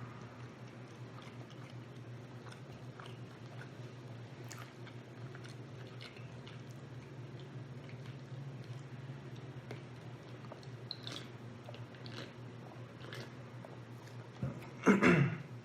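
A person chewing food close to the microphone, with faint scattered mouth clicks over a steady low hum. A brief louder sound breaks in near the end.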